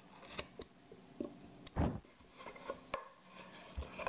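Chip carving knife cutting into a stained wooden board: scratchy slicing strokes and small clicks, with a louder dull knock about two seconds in.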